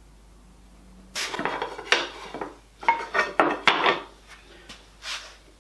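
Hard objects clattering and rattling as they are handled on a workbench: a run of clatters for about three seconds, then one more short rattle near the end.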